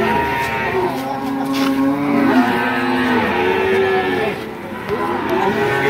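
Several calves mooing, long drawn-out calls at different pitches that overlap one another.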